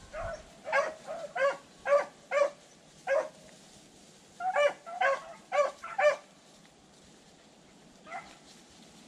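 Beagle barking in quick, evenly spaced barks: about six in the first three seconds, a pause, about five more, then one fainter bark near the end.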